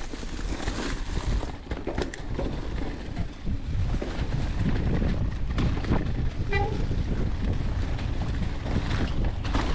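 Mountain bike rolling down a leaf-covered dirt trail, with steady wind on the microphone, tyres running through fallen leaves, and sharp knocks and rattles from the bike over bumps.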